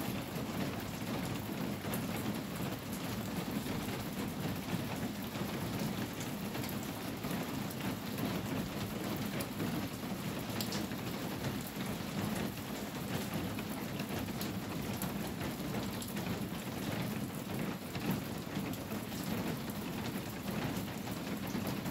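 Steady rain falling on a corrugated tin roof, a dense, even patter.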